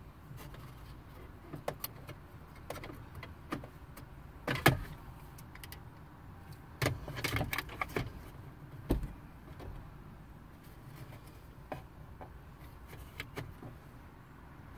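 Scattered plastic clicks, taps and rattles of a car's dashboard radio bezel being worked loose and handled, with the sharpest click about four and a half seconds in, a cluster of knocks around seven seconds, and a dull thump shortly after.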